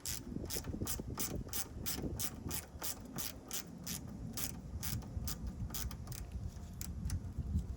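Hand ratchet clicking steadily, about three or four clicks a second, as a screw in a car door handle is backed out. The clicks thin out near the end.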